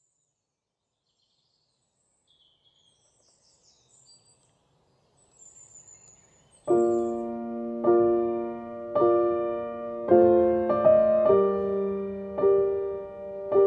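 Faint bird chirps, then about halfway through a piano comes in with slow chords, one struck roughly every second and left to ring and fade.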